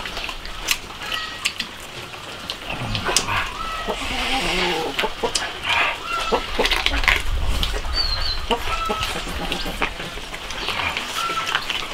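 Chickens clucking, mixed with the bites and chewing clicks of people eating braised beef hooves.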